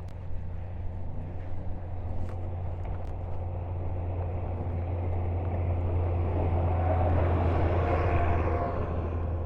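A vehicle passing on a snowy street: its engine and tyre noise swell to a peak about eight seconds in, then ease off, over a steady low hum.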